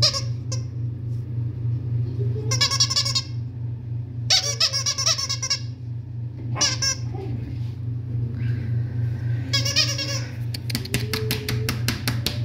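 Miniature Australian Shepherd puppy whining in several short, high-pitched squeals, some sliding down in pitch. Near the end comes a quick run of sharp clicks.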